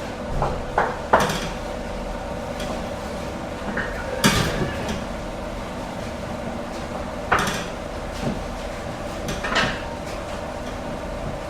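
Bakery work sounds: a steady hum from bakery machinery, with scattered sharp metal clanks and knocks, three close together near the start, then one about every two to three seconds.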